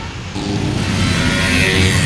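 Bus 'telolet' musical air horn sounding a tune of held tones, changing notes about a third of a second in.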